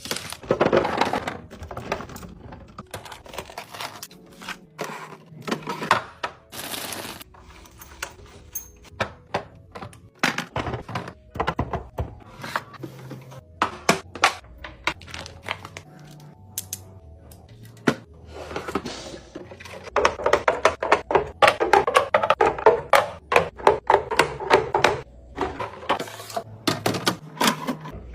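Food containers, jars and bottles being set into a refrigerator: a long run of light knocks, clacks and rattles, busiest in the last third.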